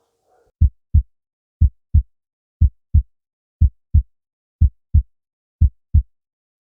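Normal heart sounds heard on stethoscope auscultation over the mitral area: a steady lub-dub, about one beat per second. Each beat is a pair of short low thumps (first and second heart sounds) about a third of a second apart, with silence between the beats.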